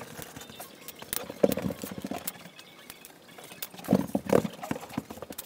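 Small metal screws and parts clicking and rattling against a plastic organizer tray as they are picked through and sorted by hand, in scattered, irregular light clicks.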